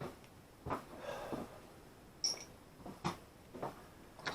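Scattered light clicks and knocks of hand work on a door lock and its screws, half a dozen small sounds spread over a few seconds.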